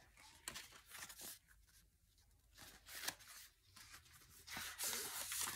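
Paper pages of a picture book being handled and turned: faint scattered rustles and crinkles with short quiet gaps, and a longer rustle near the end.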